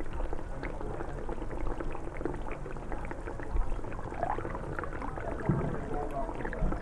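Bacon sizzling and crackling as it fries, a dense steady patter of small pops. Faint muffled chatter comes from another room now and then.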